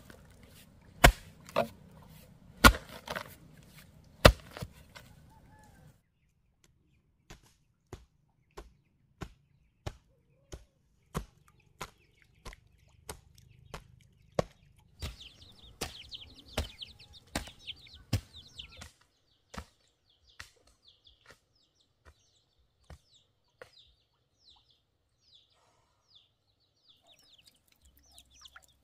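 Repeated chopping strikes. A few heavy blows come in the first five seconds, then lighter, evenly spaced strokes follow at about three every two seconds. These thin out to scattered faint taps after about nineteen seconds. High chirping, like fowl, joins for a few seconds in the middle.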